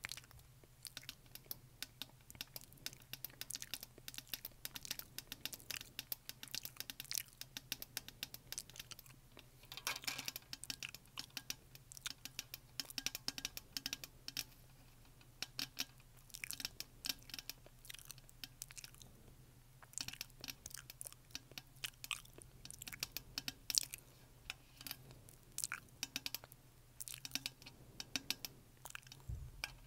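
Long acrylic fingernails tapping on a black plastic BlenderBottle shaker bottle: quick, irregular clicks in flurries.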